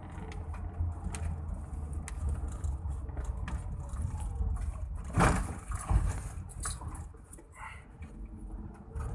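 Car driving at night, heard from inside the cabin as a steady low road-and-engine rumble with small rattles. Two louder thumps come about five and six seconds in.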